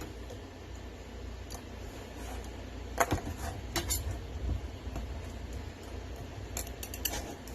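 Knife cutting a blue crab into small pieces: a few sharp clicks and cracks of blade and shell on the cutting surface, one about three seconds in, another near four seconds and a quick cluster around seven seconds, over a low steady rumble.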